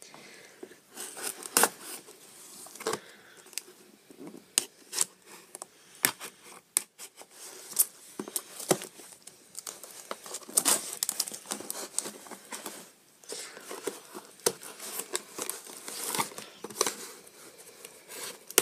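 Cardboard delivery box being torn open by hand: irregular rips, scrapes and crinkles of cardboard and packing.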